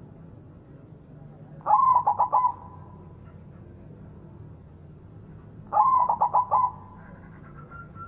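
White zebra dove (perkutut) cooing twice, about four seconds apart: each song is a quick run of staccato notes lasting under a second.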